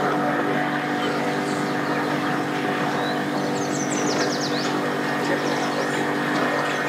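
A 50 hp outboard motor running steadily under power as a bass boat is driven up onto its trailer. A few short high chirps come about halfway through.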